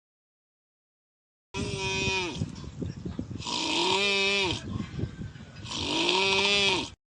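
Loud snoring in three long breaths, each with a pitched tone that rises and falls over a hiss. It starts abruptly about a second and a half in, out of dead silence, and stops just before the end.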